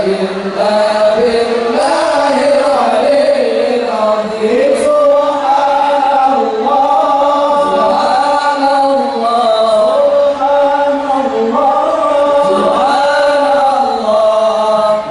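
Islamic devotional chanting by a male voice, a continuous melodic line of long held notes that waver up and down.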